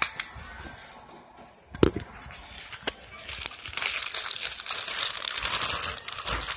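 Rustling and crinkling of plastic packaging, as if someone is rummaging through a bag. A few sharp clicks come in the first three seconds, and the rustling grows dense and steady from about three and a half seconds in.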